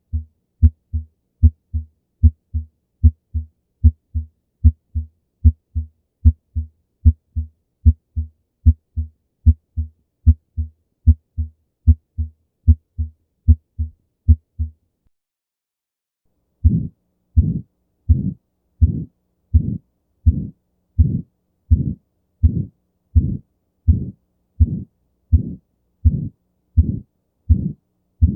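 Heart sounds heard through a stethoscope, a steady beat of about 75 a minute. For about the first half the beats come as crisp paired lub-dub strokes. After a pause of about two seconds each beat is longer and noisier, filled by a murmur: the systolic ejection murmur of aortic stenosis.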